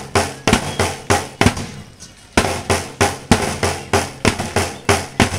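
Drum-heavy music over a loudspeaker: sharp, loud beats about three a second, with a short break about two seconds in.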